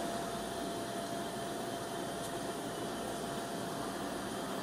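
CNC mill-turn machine turning a large metal workpiece: a steady mechanical hum and hiss with a thin steady whine over it.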